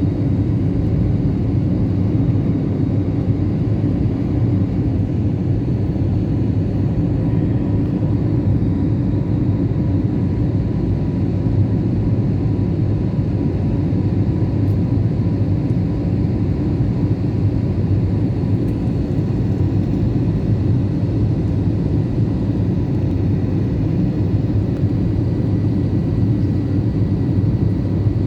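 Airliner's jet engines and rushing air heard as a steady low rumble, with faint steady whining tones above it, as the plane climbs after take-off.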